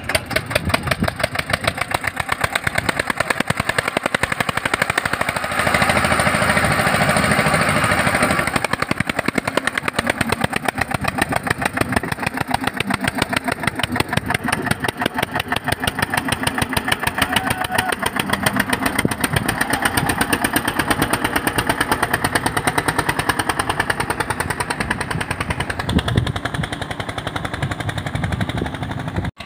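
Eicher 241 tractor's single-cylinder diesel engine running under load as it pulls a trolley full of sand, with a rapid, even exhaust beat. The engine gets louder for a few seconds about six seconds in.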